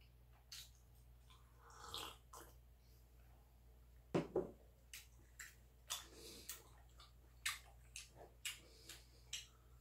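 Swallows of water from a drinking glass, then the glass set down on the table with a knock about four seconds in. After it come short clicks and smacks of chewing and handling food, about two a second.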